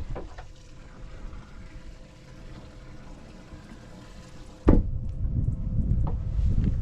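Water running and splashing steadily, then a sudden loud knock about two-thirds through, followed by louder low rumbling.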